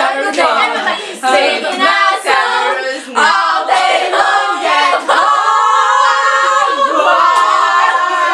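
Children singing a cappella, several voices together, the melody settling into a long held note about five seconds in.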